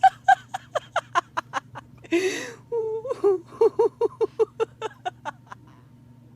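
A person laughing hard: a fast run of short, high-pitched 'ha' pulses, about six a second, broken by a gasping in-breath about two seconds in, then a second run that dies away about a second before the end.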